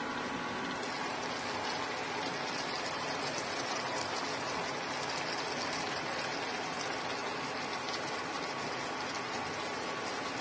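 Stir-fry sauce sizzling and bubbling in a frying pan as it reduces and thickens: a steady crackling hiss.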